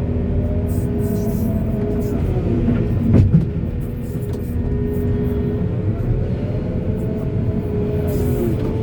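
Backhoe's diesel engine running steadily under hydraulic load, its pitch dipping and recovering briefly a couple of times. A single loud clunk of metal about three seconds in.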